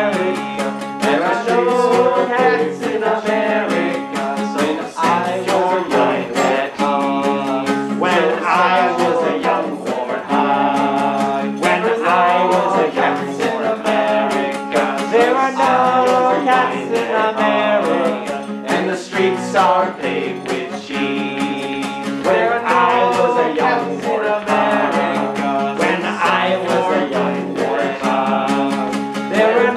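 Acoustic guitar strummed steadily under a sung melody, a folk-style song with no clear words.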